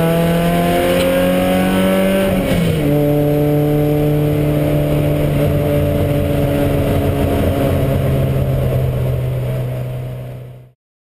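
Porsche 924 race car's four-cylinder engine at full throttle, heard from inside the cabin: revs rise, drop with a quick upshift about two and a half seconds in, then hold nearly steady before the sound fades out near the end.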